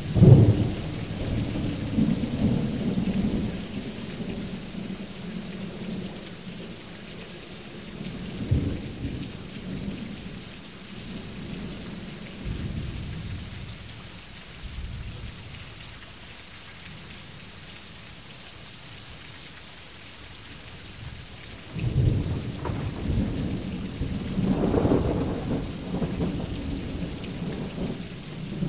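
Thunderstorm: rain falling steadily while thunder rolls. A loud sudden crack right at the start rumbles off over a few seconds, a shorter rumble comes about eight seconds in, and a long rolling peal builds from about 22 seconds, loudest around 25.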